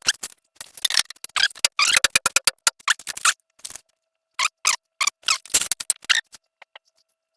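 Hard plastic pool-ladder parts knocking and clattering as they are handled and fitted together: a run of irregular sharp knocks with a couple of short pauses.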